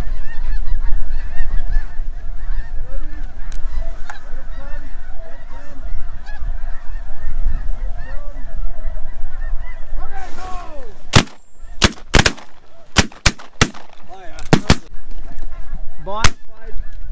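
A large flock of snow geese calling overhead, many overlapping honks, with wind rumble on the microphone. About eleven seconds in comes a rapid volley of about eight shotgun shots over three or four seconds, the geese still calling between shots.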